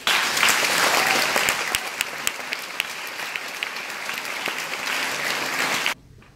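Audience applauding, a dense patter of many hands clapping that breaks off suddenly near the end.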